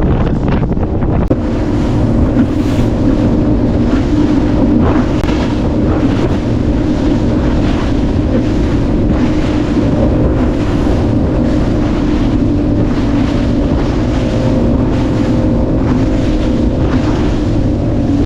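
A boat's outboard motor running steadily under way, its even pitch coming up about a second in, with heavy wind buffeting the microphone and water splashing against the hull.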